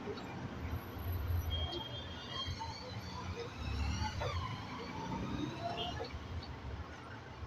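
Motor vehicles running, with a low rumble that swells and fades several times.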